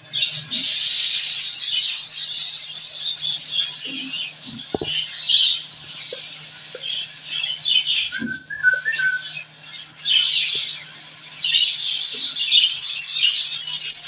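Budgerigars in a clay pot nest, chicks and an adult, calling at close range in loud, harsh bursts of chattering and squawks. The calls ease off briefly about a third of the way in and again just before the last few seconds.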